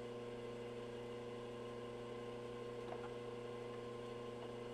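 Steady electrical hum with a faint hiss.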